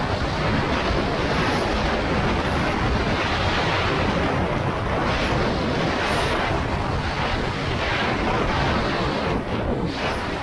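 Steady rush of wind noise on the microphone of a moving motorcycle, with brief gusty swells over the road and engine noise.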